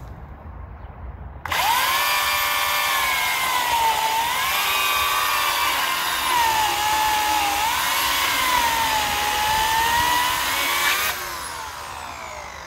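Corded Oregon electric chainsaw switched on about a second and a half in, its motor whining steadily and dipping in pitch under load as the chain cuts through a log. Near the end the trigger is released and the whine falls away as the motor winds down.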